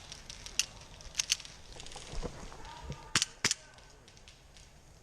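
Sharp snaps of airsoft guns firing. There are single shots about half a second in and just after a second, then a quick pair about three seconds in, with a duller thump in between.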